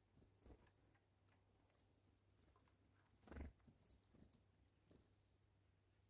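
Near silence: faint ambience with scattered soft ticks, a soft thump about halfway through, and two brief faint high chirps just after it.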